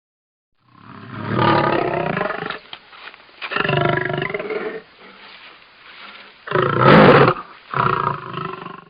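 Big-cat roar sound effect presented as the extinct American lion: four loud roars in a row, the third short and the loudest, with a low rumble between the second and the third.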